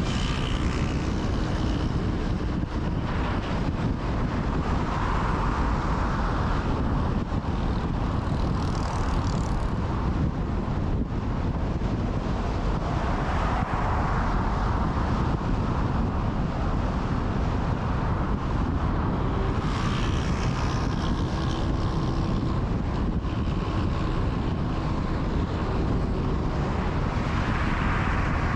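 Steady road and wind noise of a car driving along a motorway. The noise swells briefly several times, as of other traffic going by.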